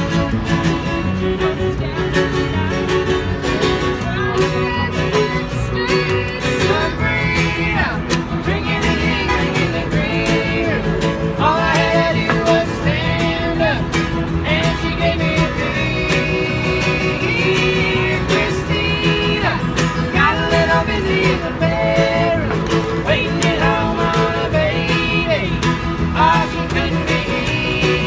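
Acoustic string band playing a song: fiddle, acoustic guitar and upright double bass, with a woman singing lead.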